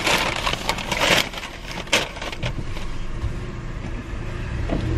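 Paper takeout bag rustling and crinkling as it is handled, most densely in the first second and trailing off by about two and a half seconds in, over a car's low steady running rumble.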